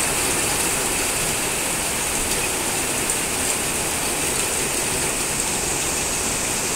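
Heavy rain falling steadily on corrugated metal roofs and the street, a dense, even hiss.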